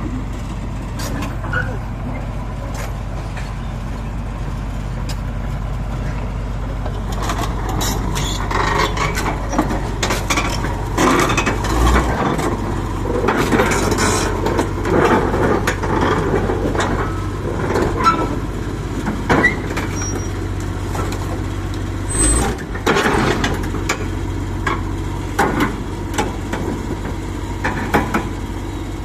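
Komatsu D65E crawler bulldozer's diesel engine running steadily while the machine drives. From about a quarter of the way in, irregular clanks and scraping noises come and go over the engine.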